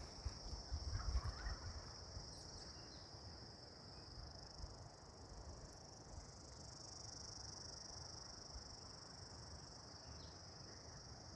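A chorus of insects calling outdoors: a steady, high-pitched chirring that holds for the whole stretch. A few low thumps, such as footsteps or handling, come in the first couple of seconds.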